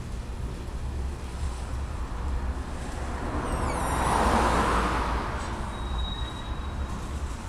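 Freight train of covered hopper cars rolling past with a steady low rumble. About halfway through, a car drives past close by, its tyre noise swelling to the loudest point and then fading.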